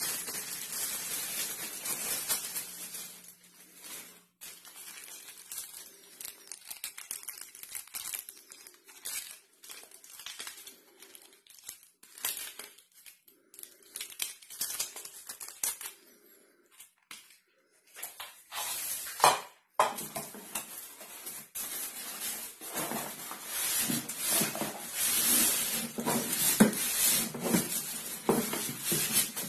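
Packaging being handled: a plastic bag crinkling and rustling as the cables inside are unpacked. From about twenty seconds in, louder rubbing and scraping of cardboard and polystyrene packing as the boxed turntable is pulled out.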